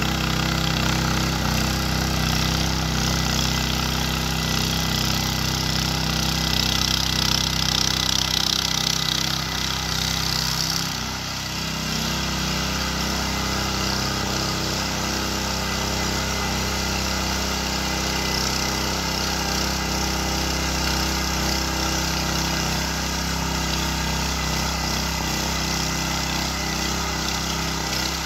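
Ruris 751KS motor hoe with eight tines running steadily as it churns soil. Its sound dips and shifts pitch slightly about ten seconds in.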